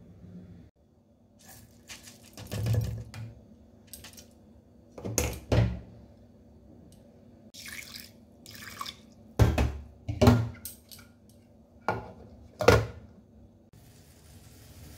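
Water splashing and pouring over mustard seeds in steel vessels, broken by several sharp clunks of the steel mixer-grinder jar and its lid being handled.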